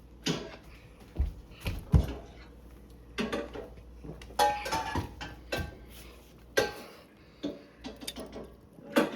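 Kitchen pans and utensils clattering and knocking together: about a dozen separate sharp knocks, some with a brief ring.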